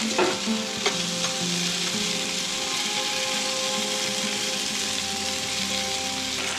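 Sausages and diced vegetables sizzling steadily in a hot frying pan as a metal spatula stirs them, with a few clicks and scrapes of the spatula against the pan in the first second or so.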